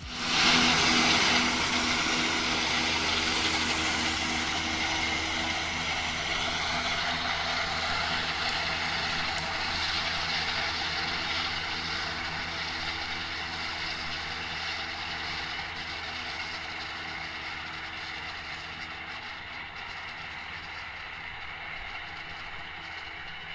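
Tractor engine running steadily under load, driving a Fella front and side disc mower combination through grass, with the steady hum slowly fading as the rig moves away.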